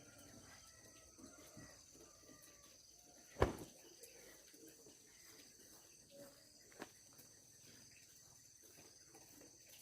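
Faint, steady high-pitched insect chirring, with one sharp knock about three and a half seconds in and a lighter click near seven seconds.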